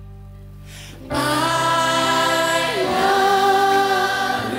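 Pop song performance: after a soft held chord, a large group of voices comes in loudly about a second in, singing "I love you" together as a full chorus over the band.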